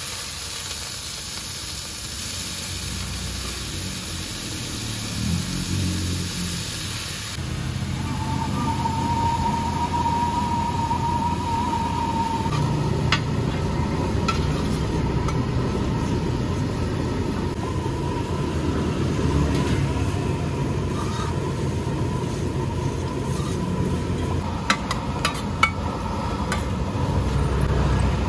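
Rice noodles for pad thai being stir-fried in hot oil in a wide, shallow street-food pan: steady sizzling and stirring, with a low rumble underneath. A metal spatula clinks sharply against the pan a few times, around the middle and near the end.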